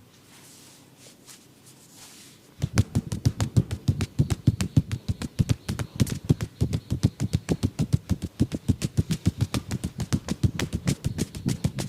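Rapid percussive massage strokes: the masseuse's hands slapping and chopping on the body in a fast, even patter of about six or seven strikes a second. The strokes start suddenly about two and a half seconds in, after a quiet opening.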